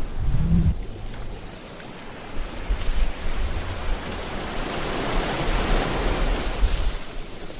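Ocean waves breaking and washing in, a surging hiss that builds through the middle and eases off near the end, over a low rumble.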